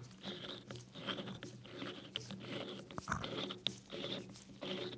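Brand-new K72-250 four-jaw lathe chuck, its jaw screw turned with the chuck key, giving a run of short, dry, gritty scraping crunches with small clicks. It sounds completely dry: the screw and jaw have no lubrication at all.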